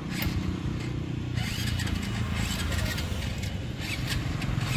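Road traffic passing close by: a vehicle engine's steady hum, joined about a second and a half in by a louder rushing hiss with scattered clicks.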